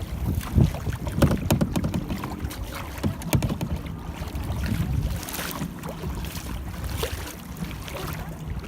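Kayak paddle strokes splashing in lake water, irregular sharp splashes over a steady low wind rumble on the microphone.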